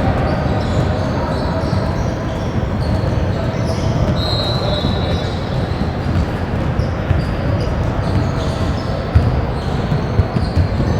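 A basketball bouncing on a gym floor over a background of voices in a large hall, with a brief high squeak about four seconds in.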